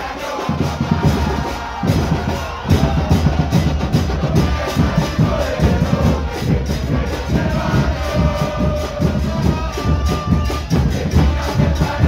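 Football crowd singing a terrace chant together to a steady beat of bass drums.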